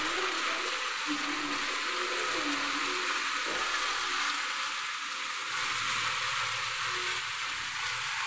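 Chicken and mixed vegetables sizzling in a frying pan over a gas flame while being stirred, a steady frying hiss.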